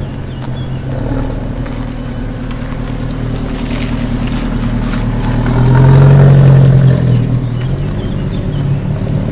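Alfa Romeo Mole Costruzione Artigianale 001's turbocharged four-cylinder engine and exhaust running at low revs as the car pulls away slowly. The drone swells to its loudest about six seconds in, then eases off.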